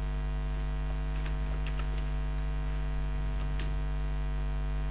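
Steady electrical mains hum on the recording, with a few faint ticks.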